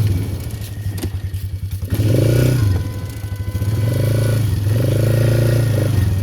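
ATV engine running at low revs for the first two seconds, then revved up and eased off several times.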